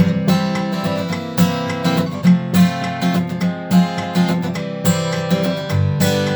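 Guitar strumming chords for a song's intro, with a stroke about once a second over notes left ringing.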